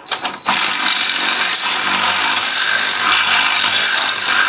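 Cordless drill with a 12 mm bit boring through the sheet-metal dust shield behind a rear brake disc, enlarging a hole so a longer wheel stud can pass. It starts with a few short stop-start bursts, then runs steadily.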